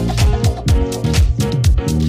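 Upbeat closing music with a steady drum beat, about four hits a second, over a moving bass line.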